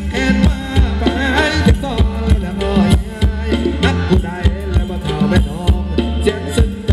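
Live band playing Thai ramwong dance music, with a steady drum beat about two strikes a second over bass and a wavering melody line.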